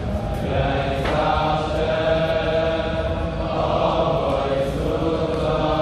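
A large group of men singing a Hasidic melody together, holding long, steady notes.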